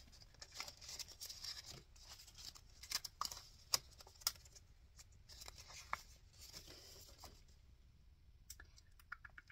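Clear plastic binder pockets and paper bills rustling and crinkling as they are flipped and handled, with scattered light clicks and taps.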